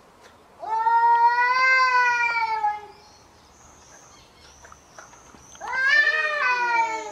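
Cats yowling in a fight: two long, drawn-out yowls. The first comes about a second in and lasts about two seconds. The second starts near the end, rising quickly, then sliding down in pitch.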